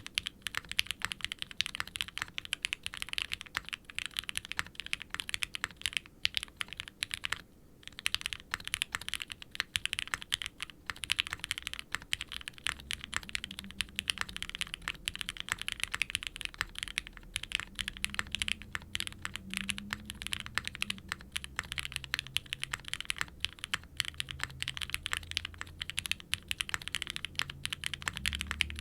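Continuous typing on a Qwertykeys QK60 R3 60% gasket-mount mechanical keyboard with custom Gateron frankenswitch linear switches (UHMWPE stems), a carbon fiber plate and GMK double-shot ABS keycaps: a quick run of soft, muted, clacky bottom-outs. The typing breaks off briefly about seven and a half seconds in.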